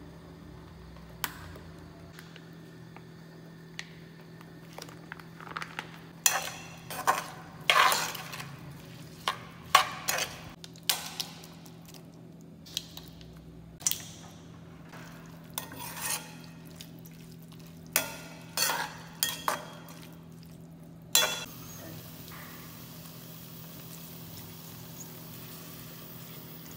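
A utensil stirring and scraping in a metal cooking pot of seafood and vegetables, with sharp clinks and knocks against the pot in quick runs. About 21 seconds in the knocking stops and a steady pour of water into the pot follows.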